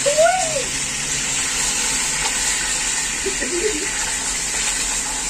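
A large fish deep-frying in hot oil in a wok: a steady, loud sizzle with spattering oil.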